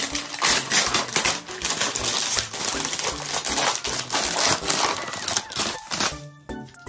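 Clear plastic bag crinkling and rustling as it is opened and rummaged through by hand, a dense run of irregular crackles that eases off about six seconds in.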